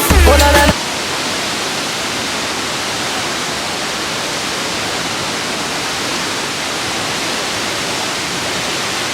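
Steady rushing of a large waterfall, an even wash of water noise. Background music cuts off abruptly under a second in.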